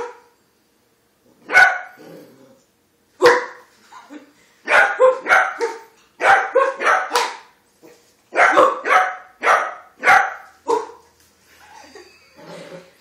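A beagle puppy barking in play: single high, sharp barks at first, then quick runs of several barks with short pauses between them.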